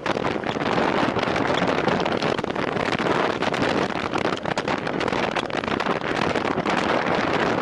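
Wind rushing and buffeting over the microphone of a rider riding at speed on a time-trial bike, a steady dense rush with constant flutter.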